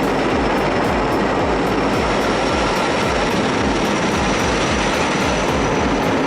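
Helicopter running with a steady rapid beat of the rotor blades under a constant rushing noise and a faint high turbine whine.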